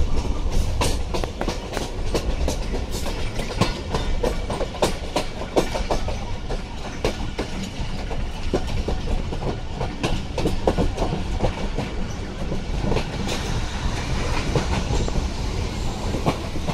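Pakistan Railways passenger train running along the track, heard from an open coach window: a steady low rumble with the wheels clattering over the rails in many sharp clicks.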